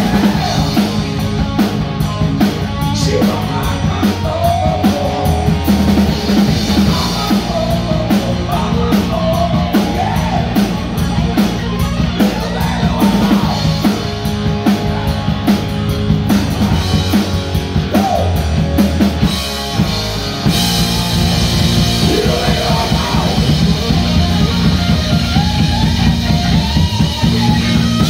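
Live rock band playing an instrumental passage with no vocals: distorted electric guitar soloing with bent notes over bass and a drum kit. The cymbals ring brighter from about twenty seconds in.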